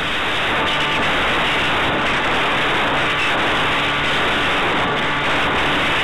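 Wind rushing over the microphone of a FlyCamOne 2 onboard camera on a Maxi Swift flying-wing model in flight. It is a steady, loud rush of noise with a faint steady hum underneath.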